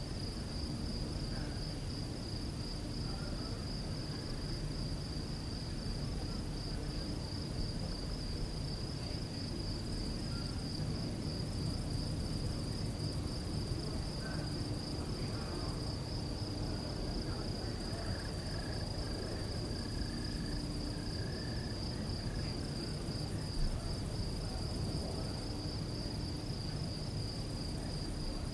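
Crickets chirping in a continuous, rapidly pulsing high trill over a low background rumble.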